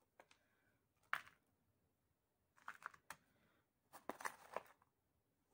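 Faint scraping and crunching of a small stick scooping potting soil from a plastic container, in three short bursts: about a second in, near three seconds, and around four seconds.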